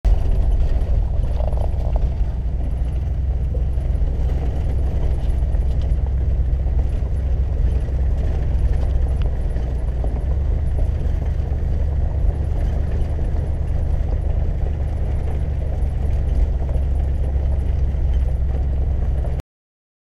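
Ford Econoline camper van driving, heard from inside the cab with a window open: a steady low rumble of engine, road and wind noise. It cuts off suddenly near the end.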